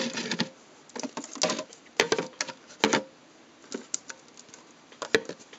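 Scattered light clicks and taps, about eight spread unevenly over a few seconds, from plastic containers and glass storage jars of paper flowers being handled on a wooden table.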